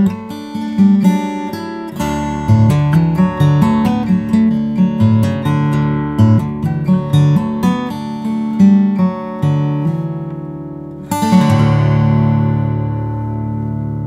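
Epiphone steel-string acoustic guitar fingerpicked with the long nails of the right hand: a quick run of plucked notes and chords. About eleven seconds in a full chord is strummed and left to ring out, fading slowly.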